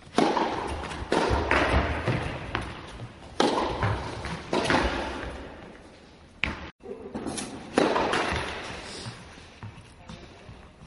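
Tennis ball struck repeatedly with a racket, a series of sharp hits a second or two apart, each ringing on in a large echoing indoor hall.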